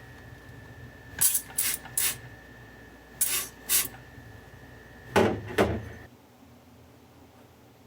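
Seven short hissing bursts: three quick ones, then two, then two fuller ones. They sound over a faint steady high-pitched hum that cuts off about six seconds in.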